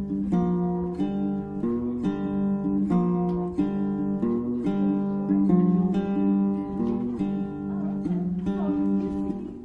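Music: a strummed acoustic guitar playing chords that change about every second.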